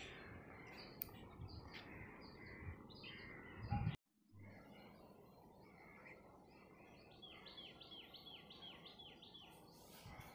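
Faint outdoor ambience with birds chirping. After a brief dropout about four seconds in, one bird gives a quick run of about eight repeated, falling chirps.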